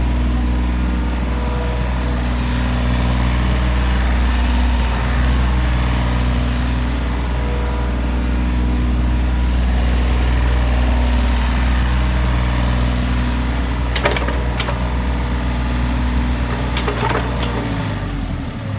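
Excavator's diesel engine running steadily, with a few sharp clanks about fourteen and seventeen seconds in; the engine note drops near the end as it eases back.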